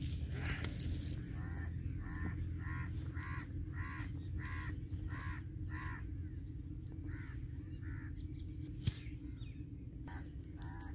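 A crow cawing in a quick run of about a dozen short calls, then two more a little later, over a steady low background hum.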